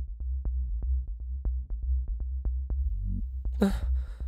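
Electronic background score: a deep, steady low drone under a fast, even ticking pulse. About three and a half seconds in, a man gives a heavy breath.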